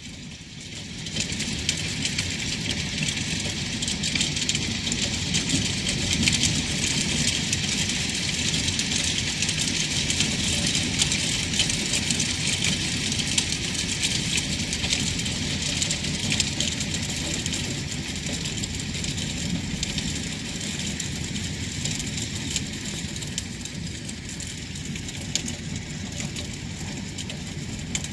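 Small hail and rain pelting an asphalt-shingle roof: a dense hiss of countless tiny ticks that comes up to full strength about a second in, over a low steady rumble.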